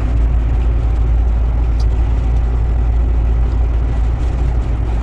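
Steady low drone of a truck's engine and road rumble heard inside the cab while driving along at an even speed.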